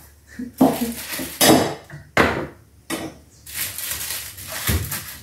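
Cups, an enamel teapot and small pots clinking and knocking on a wooden cupboard counter as they are picked up and set back in place: several separate clatters, with a duller thump near the end.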